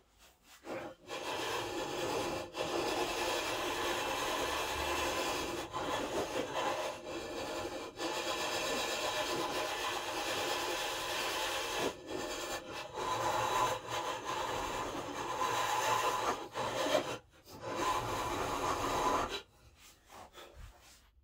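Flat hand file scraping back and forth inside a slot cut through a wooden canoe yoke, enlarging and smoothing the slot. Continuous rasping strokes with a few brief breaks, stopping shortly before the end.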